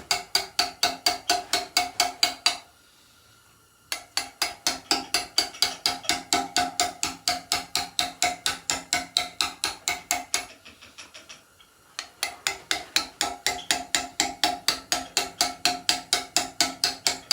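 Steady stone carving: a hammer strikes a steel chisel into stone at about five blows a second, each blow ringing. The work stops briefly twice.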